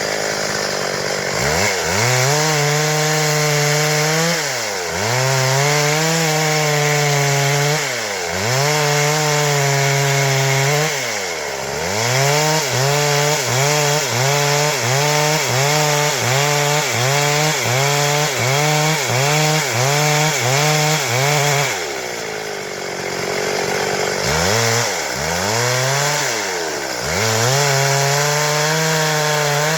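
Stihl MS 382 two-stroke chainsaw running at high revs while cutting wood, its pitch dropping and climbing back every few seconds as the throttle is eased and reopened. Through the middle stretch the engine speed dips in quick, regular pulses; about two thirds of the way in it falls back to a lower, steadier pitch before revving up again.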